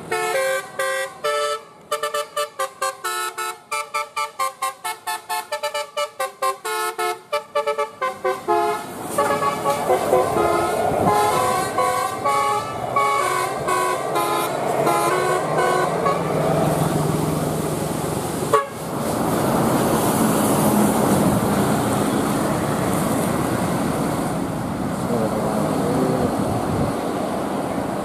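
A bus's telolet horn, a set of musical air horns, playing a fast stepped-note tune of the Basuri type. After about eight seconds the horn notes blend into the engine and tyre noise of the passing bus. From about sixteen seconds on there is only a steady engine hum and road noise, with one sharp click partway through.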